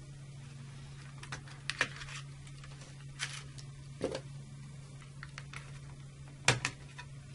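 Scattered light plastic clicks and taps as the undervoltage release and shunt trip modules of an Eaton Series NRX circuit breaker are unlatched and lifted out of their plastic accessory tray, over a faint steady low hum.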